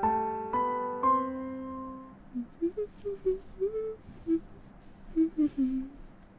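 Gentle piano music holds its last notes and fades out about two seconds in. A child then hums softly in a string of short, wandering notes, with a few faint light clicks.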